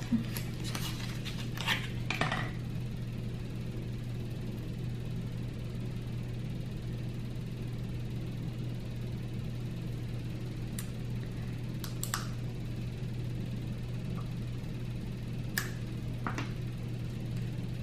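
Steady low hum of room tone, with a few short clicks and taps from handling a nail polish bottle: a small cluster in the first couple of seconds, then a few single faint clicks spread through the rest.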